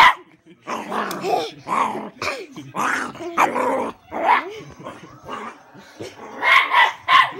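Dog growling and barking in a string of short bursts, some with a wavering pitch, with a quicker run of barks near the end.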